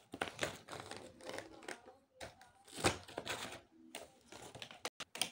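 Irregular plastic clicks and rattles of crayons and colour pencils being handled in a plastic art-set case, with the case's lid being shut.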